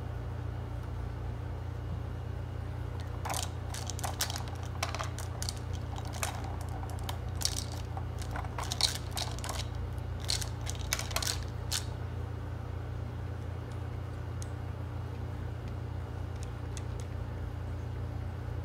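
Dry kibble rattling and clicking in the plastic tubes of a treat-tower puzzle feeder as a cat paws them round, the clatter coming in quick clusters for several seconds and then only a few scattered clicks. A steady low hum runs underneath.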